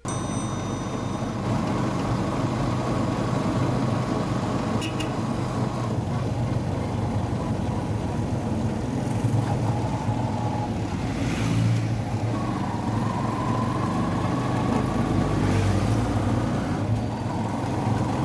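Engine and road noise of a moving vehicle, heard from inside its open-sided passenger compartment: a steady low engine drone with a faint whine that rises and falls.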